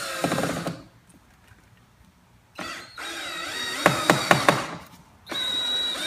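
Power drill/driver driving a wood screw straight into the wall without a pilot hole, run in three short bursts with pauses between. There are several sharp clicks partway through the second burst.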